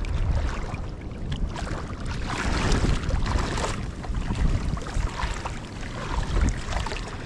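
Wind buffeting the microphone, with the gusty rumble rising and falling, over small waves lapping and splashing in shallow water along a reef shore.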